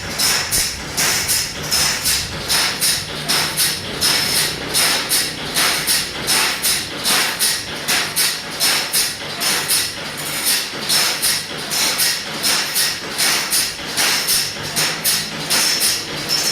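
Hand file rasping across the teeth of a large two-man crosscut saw (gergaji selendang) to sharpen it, in steady strokes about two a second.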